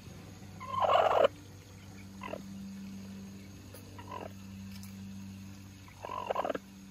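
Broody hen sitting in a nest box giving harsh calls: a loud one about a second in, short ones around two and four seconds, and another near the end, over a steady low hum.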